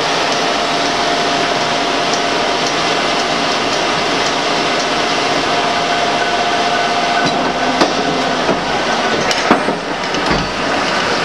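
Six-spindle Cone automatic lathe running: a loud, steady mechanical din with a steady whine that fades about eight seconds in, and a few sharp clicks near the end.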